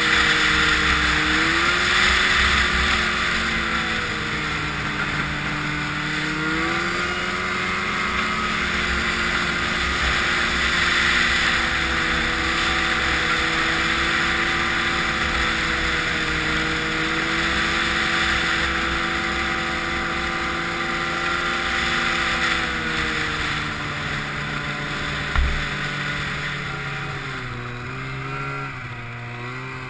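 Snowmobile engine running under way over a steady hiss. Its pitch rises a couple of seconds in and again about six seconds in, then eases down over the last several seconds. A single sharp thump comes about 25 seconds in.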